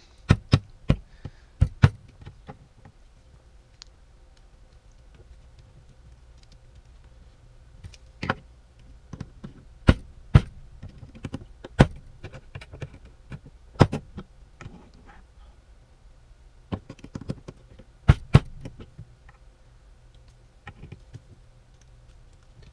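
Scattered sharp clicks and knocks, in small clusters with quiet gaps, of a hex screwdriver and a 3D-printed plastic part being worked against a wooden table as tight M3x30 screws are forced into the plastic.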